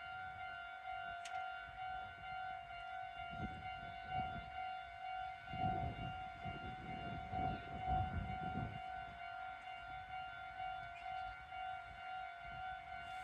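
Japanese railroad crossing alarm ringing its repeating electronic "kan-kan" bell tone, steady and pulsing. A low rumble swells and fades in the middle.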